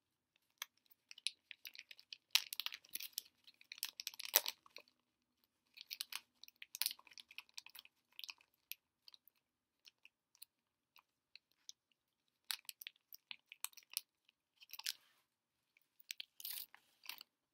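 Kvikk Lunsj chocolate-covered wafer bar being bitten and chewed: crisp, irregular crunching in spells with short pauses, loudest about four seconds in.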